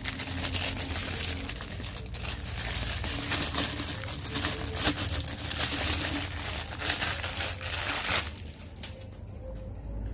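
Clear plastic wrapping crinkling as hands pull it off a small gas-cylinder-shaped lighter. The crinkling stops about eight seconds in.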